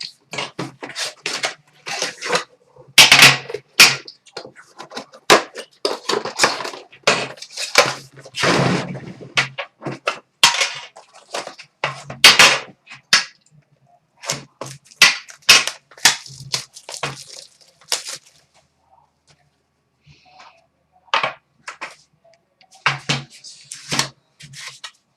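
Sealed trading-card boxes being opened by hand: a long run of sharp crackles, rips and clacks as the plastic wrap and packaging are torn off and cardboard is handled. It falls almost quiet for a few seconds about two-thirds of the way through.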